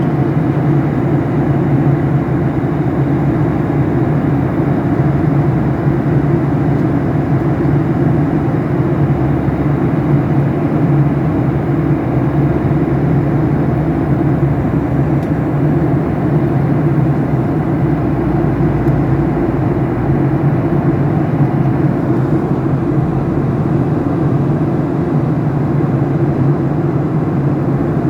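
Airliner cabin noise in flight: the steady rush of the engines and airflow, with a constant low hum.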